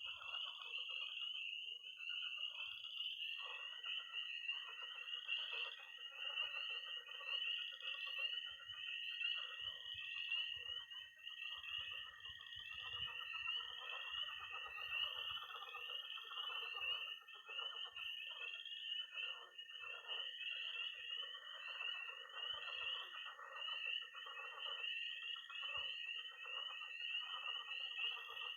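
Night chorus of frogs and toads: peeping tree frogs (spring peepers) calling in a dense, constant peeping, with one long high-pitched toad trill starting a few seconds in and running almost to the end, over a lower chatter of croaking pond frogs.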